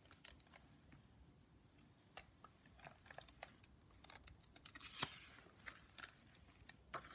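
Near silence with faint handling noise from a hardcover picture book being held open: scattered small clicks and a brief paper rustle about five seconds in.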